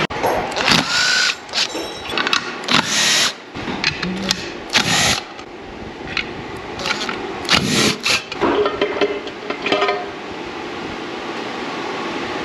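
Cordless drill running in several short bursts, backing out the valve-cover bolts on a small block Chevy so the valve lash can be checked. Lighter knocks follow as the cover comes off.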